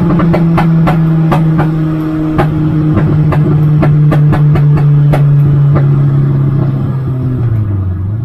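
Peugeot 106 race car's 1.4-litre four-cylinder engine running hard at a nearly steady high pitch, heard from inside the stripped cabin, with many sharp clicks and knocks over it. Near the end the engine note drops briefly, then rises again.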